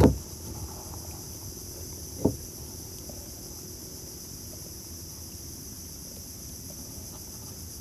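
Steady high-pitched insect chorus from the mangroves, with a short knock at the very start and another about two seconds in.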